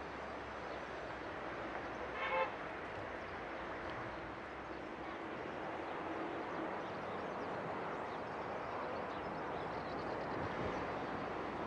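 Steady traffic noise with a single short horn toot about two seconds in.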